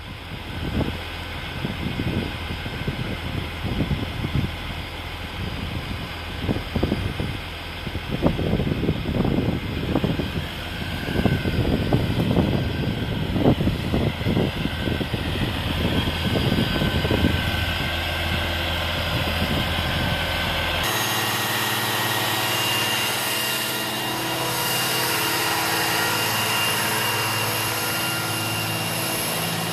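Construction-site machinery: irregular knocks over a low engine hum. About two-thirds of the way through it switches abruptly to a steady engine drone.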